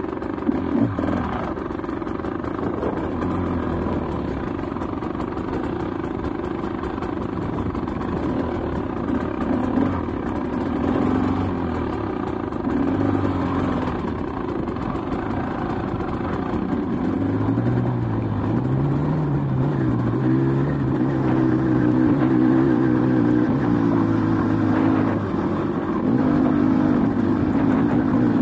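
Off-road motorcycle engine running under load on a rocky uphill trail, heard from on board, its note rising and falling with the throttle.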